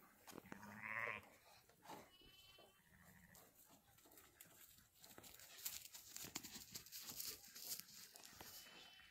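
A sheep bleats once, about a second in. Scratchy rustling follows through the second half.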